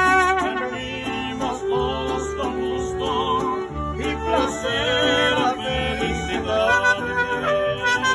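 Music with a melody over a steady pulsing bass line, running without a break.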